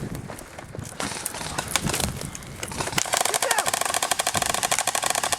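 Airsoft gun firing: a few scattered shots, then about three seconds in a continuous rapid full-auto burst of about twenty shots a second that keeps going.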